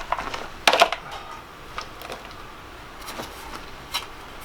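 A heat lamp being handled and hung. There is a short clatter of clicks just under a second in, then a few scattered single clicks and knocks.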